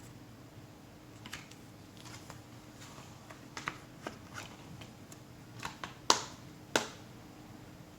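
Plastic Blu-ray case and its packaging being handled: scattered light clicks and taps, with two louder, sharper clicks about six and seven seconds in.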